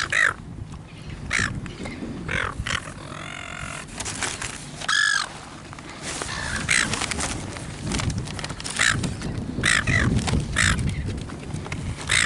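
Silver gulls squawking: a dozen or so short calls spread through, with a longer, wavering call about five seconds in, from gulls begging around people eating.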